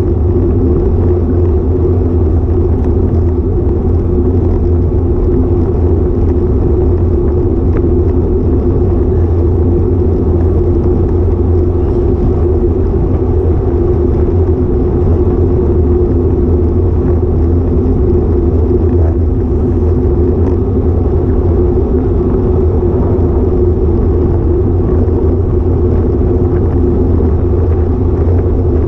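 Steady, loud rumble of wind buffeting and road vibration on the microphone of a GoPro Hero5 Session action camera mounted on a road bike while riding.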